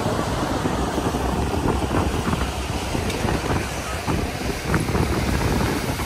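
Power catamaran under way at speed: twin Yamaha 200 hp outboards running, with a steady rush of wind and water against the hull.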